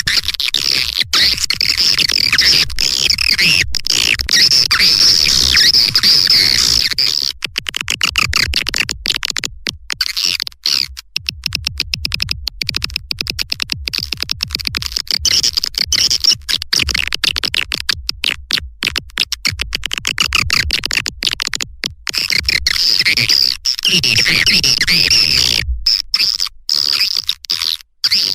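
Swiftlet lure call recording: dense, rapid twittering chirps and fast clicking, looped and electronically processed, with a low pulsing layer underneath. It is the 'call' track played to draw swiftlets into a nesting house.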